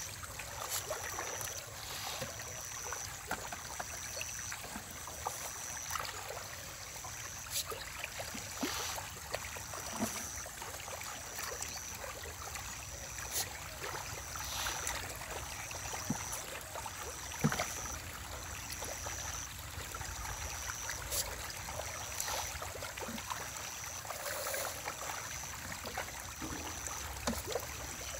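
Stinging catfish (deshi shing) splashing and plopping at the surface of a pond, short scattered splashes over a low steady rumble. A high chirp repeats regularly about every second and a half throughout.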